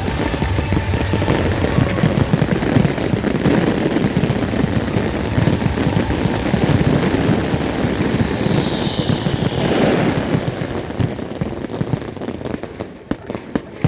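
A fireworks barrage: dense, continuous rapid crackling and popping. A brief falling whistle comes about eight seconds in, and near the end the barrage thins out to a few separate pops.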